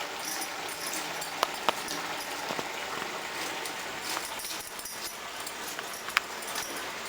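Pot of vegetables simmering in tamarind water, with a few sharp clinks of a utensil against the pan.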